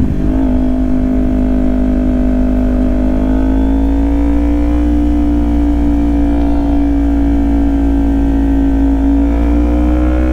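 Kawasaki Ninja 400's parallel-twin engine pulling hard in one gear, its pitch held high and climbing slowly and steadily under sustained acceleration, with wind rush underneath.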